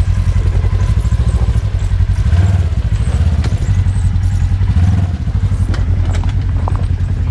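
Polaris RZR side-by-side engine running at low revs while crawling up a rocky hill, a steady low throb that swells a few times with throttle. A few sharp knocks of rock under the tyres.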